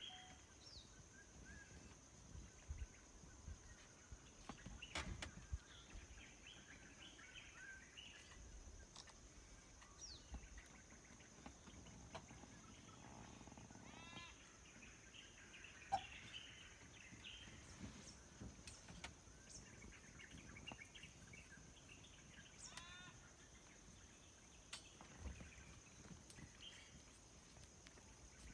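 Faint, near-silent scrub-forest ambience: scattered bird chirps and short call series over a steady high-pitched drone, with a few faint clicks.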